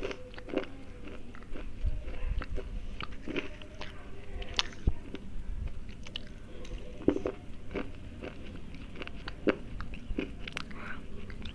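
Slate pencils being bitten and chewed close to the microphone: irregular sharp crunches, with a few louder snaps among the steady chewing.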